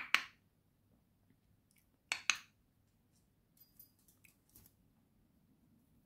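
Light, sharp clicks from a budgerigar moving onto a hand and picking at a seed treat: two sharp double clicks about two seconds apart, then fainter quick ticks.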